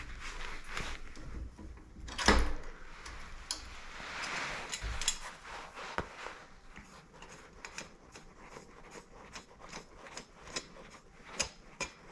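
Bicycle crank and chainring parts being handled on a workbench: scattered light metallic clicks and clinks, with one louder knock about two seconds in and a run of quick small ticks later on.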